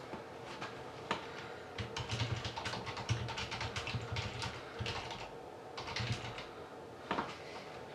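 Typing on a computer keyboard: a quick run of key clicks, densest through the middle, with a few single clicks before and after.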